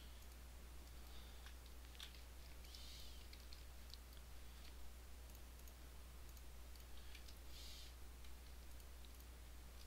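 Faint, sparse computer mouse clicks and key presses, a few scattered single clicks, over a steady low hum.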